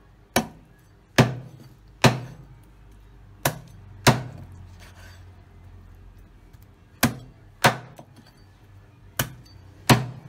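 A large kitchen knife chopping raw chicken on a thick wooden chopping board: about nine sharp chops in uneven groups, with a pause of about three seconds in the middle.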